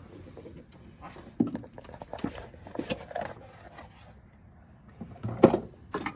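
Irregular clicks, knocks and clatter of hand tools and parts being handled and removed, with a louder knock about five and a half seconds in.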